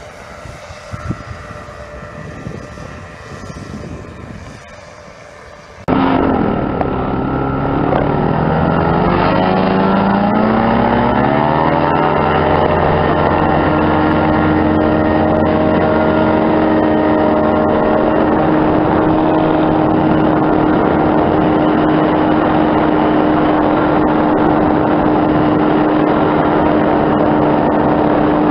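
Engine and propeller of a foot-launched powered hang glider. It is heard quietly at first as the glider flies past. About six seconds in it jumps to loud and close, its pitch rising over several seconds and then holding steady as it runs at climbing power.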